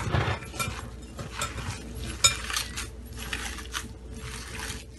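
A plastic-gloved hand kneading raw beef mince with spices, yogurt and fried onion in a glass bowl: irregular squishing and rustling strokes, with a sharp click a little past two seconds in.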